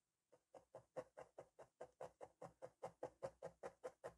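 A 38-gauge spiral felting needle stabbing again and again through felt and wool into the pad beneath. It makes a steady run of short crunching punches, about five a second, starting about a third of a second in. The needle is driven all the way through so that all its barbs catch.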